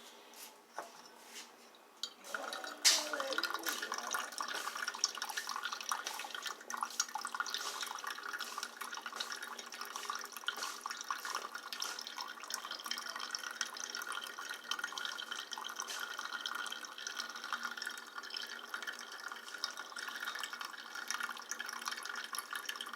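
Coffee brewing on the stove: liquid bubbling and sputtering with a dense, steady crackle that starts about two seconds in and keeps going.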